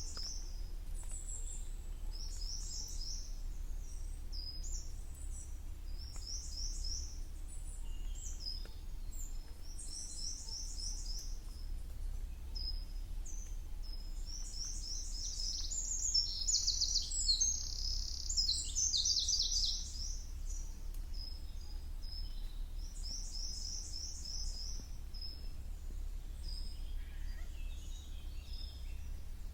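Songbirds singing high, short phrases of quick notes, repeated every few seconds and busiest and loudest a little past the middle, over a steady low rumble.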